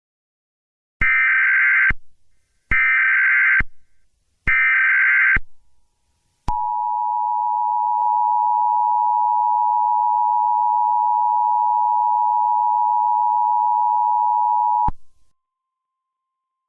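Emergency Alert System header: three short bursts of SAME digital data tones, each about a second long, then the two-tone attention signal (853 and 960 Hz together) held steady for about eight seconds and cut off sharply. Together they open a broadcast severe thunderstorm warning.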